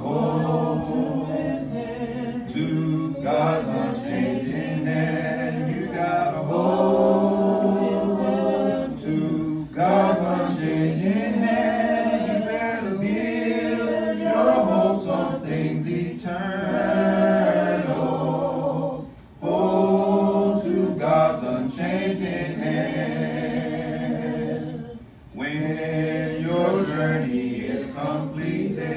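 Voices singing a hymn together a cappella, with no instruments, in long held phrases and brief pauses between lines.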